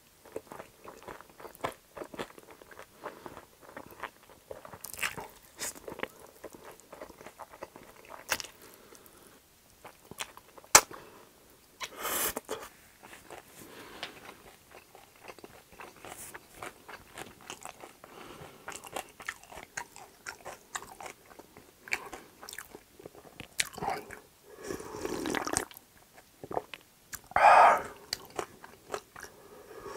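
A man chewing chewy spicy jjolmyeon noodles, with many wet mouth clicks and smacks. There is a sharp click about eleven seconds in, a slurp about twelve seconds in, and louder slurping near the end.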